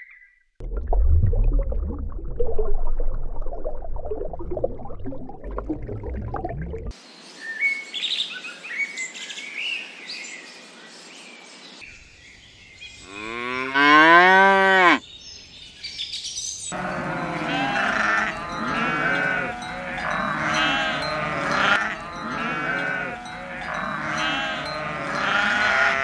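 Separate animal recordings cut together. About halfway through, a cow gives one loud moo that rises and then falls in pitch. Before it come low rumbling noise and faint bird chirps, and after it about ten seconds of many overlapping animal calls.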